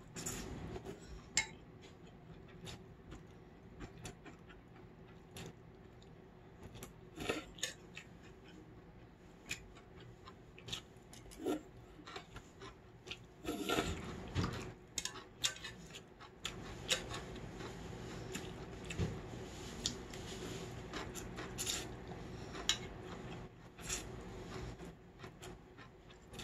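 Mukbang eating sounds of cold buckwheat noodles: slurping noodles and chewing, with wooden chopsticks clicking now and then against a stainless steel bowl. A longer, louder stretch comes about halfway through.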